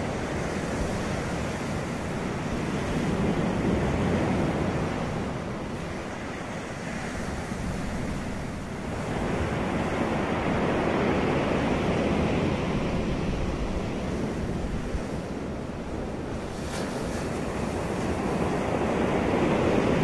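Ocean surf breaking and washing up the beach, a continuous rushing that swells and eases in slow surges every several seconds.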